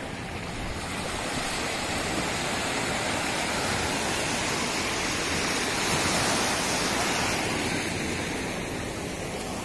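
Seawater rushing and splashing close by, swelling over several seconds and then fading.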